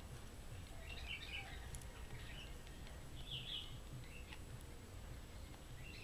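Faint, scattered bird chirps, a few short calls spread over several seconds, over a low steady outdoor rumble.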